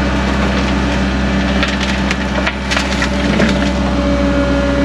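Cat 307.5 mini excavator running steadily under load, heard from the cab, with a cluster of sharp cracks and crunches as the bucket digs through soil and rock, mostly between about one and a half and three seconds in.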